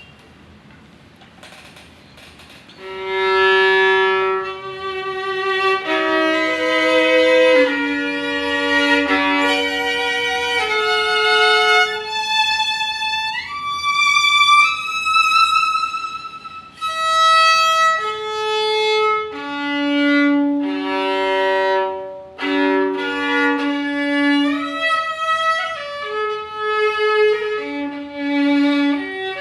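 Antique 1860 Derazey School French violin played solo with the bow, a slow melody of held notes with vibrato and slides up into higher notes, starting about three seconds in.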